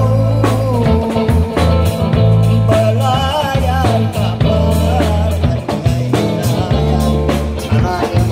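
Live band music: guitar over a heavy bass line, with a wavering melody line on top.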